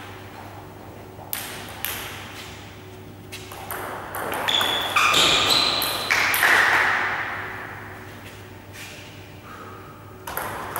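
Table tennis ball clicking off bats and bouncing on the table during a rally, echoing in a large hall. A louder stretch of squeaky, rustling noise comes in the middle.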